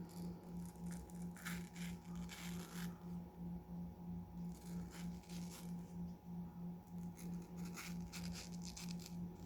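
Knife slicing through the fibrous flesh of a ripe apple mango: several short scratchy cutting sounds as the fibres tear. Under them is a low hum pulsing a few times a second.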